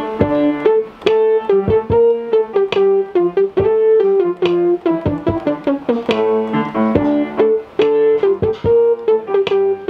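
Electronic keyboard played with a piano sound: a melody of quick, distinct notes over lower held notes.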